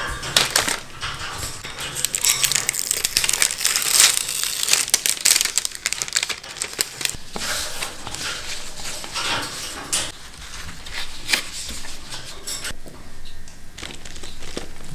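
Crinkling and rustling of thin clear plastic berry punnets and a paper towel being handled, folded and pressed into an emptied punnet, in a run of irregular crackles and taps. The rustling is busiest in the first few seconds and thins out near the end.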